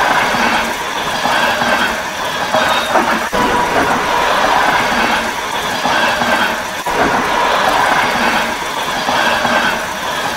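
Passenger train passing, its wheels running on the rails with a steady squealing tone over the wheel noise. The same stretch of sound repeats about every three and a half seconds, like a looped clip.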